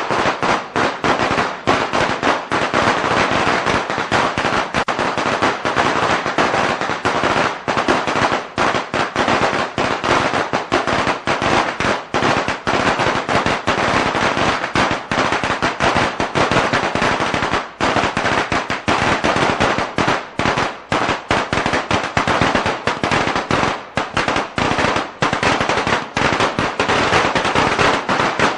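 A long string of Chinese firecrackers going off in a dense, unbroken rapid crackle of sharp bangs.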